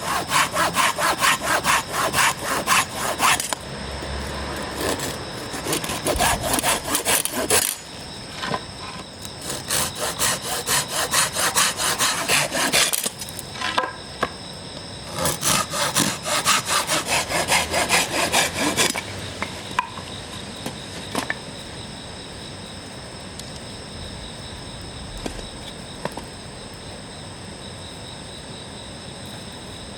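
Hand saw cutting through wood in quick back-and-forth strokes, about four a second, in three runs with short pauses between. The sawing stops a little past halfway, leaving a quieter steady background with a few faint clicks.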